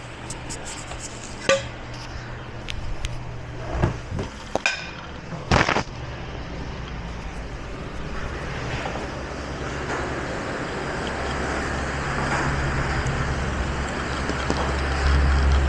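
A few sharp clinks and knocks of dishes and utensils, the loudest about five seconds in. Then a steady low rumble builds and grows louder toward the end.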